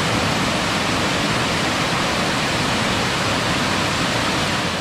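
Small waterfall cascading over rock ledges: a loud, steady rush of water.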